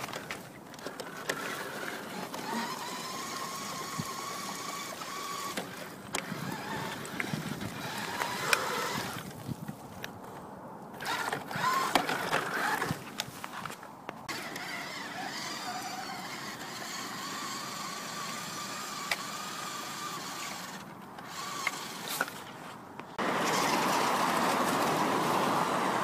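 New Bright toy remote-control car's electric drive motor and gears whining in a steady high tone, stopping and starting again several times. Near the end a loud, even rushing noise takes over.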